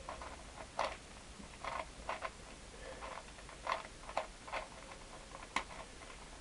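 MF8 Megaminx (V2) twisty puzzle being turned to scramble it: irregular plastic clicks and clacks as the faces snap round, about a dozen in a few seconds. The puzzle is still stiff, freshly lubricated with silicone and breaking in.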